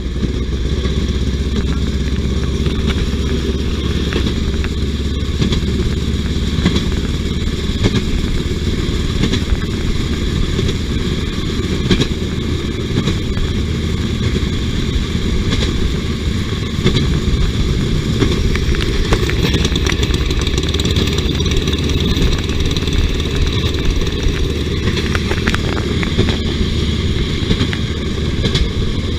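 Motor jigger rail car's small engine running steadily as it travels along the track, with a few sharp clicks from the wheels on the rails.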